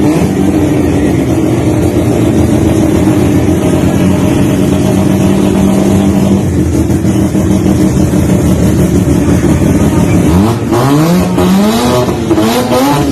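Toyota Starlet's engine running loud at a steady speed, then from about ten seconds in revved in several quick rising and falling blips.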